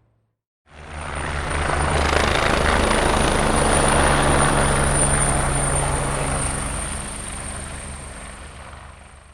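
Helicopter passing by: a fast low rotor beat and a steady high whine come in under a second in, grow loud through the middle, then fade away slowly.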